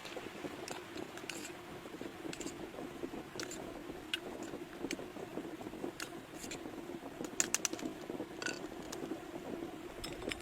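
Steady wind noise with irregular light taps and clicks scattered through it, a few quick ones close together about seven and a half seconds in.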